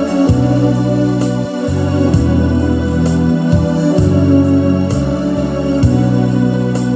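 Electronic keyboard played with an organ voice: sustained chords over a bass line that changes note every second or so, with light, regular ticks from a rhythm accompaniment. Instrumental gospel playing, no singing.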